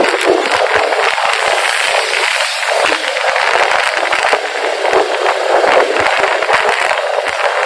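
Wind rushing and crackling over the camera microphone on a moving motorcycle, mixed with road and traffic noise; it is loud and rough, with no clear engine note showing through.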